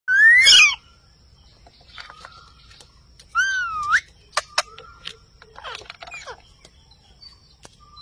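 Indian ringneck parakeets calling: a loud rising whistle at the start, a swooping whistle a little past three seconds in, two sharp clicks, then softer chattering calls.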